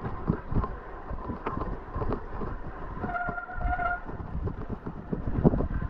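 Mountain bike rattling and knocking over rough, muddy trail on a slow descent, ridden on the brakes, with a brief disc-brake squeal about three seconds in.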